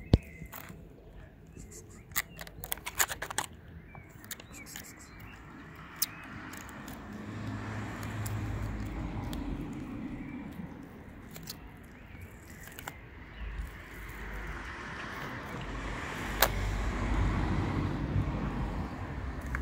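Foil wet-cat-food tray being handled and scraped against stone as the food is tipped out, with crinkling and a run of sharp clicks.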